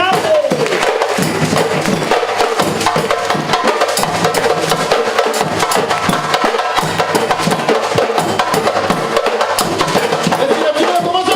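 A live percussion band playing a fast, dense drum groove, with many drums and sharp wood-block-like strikes.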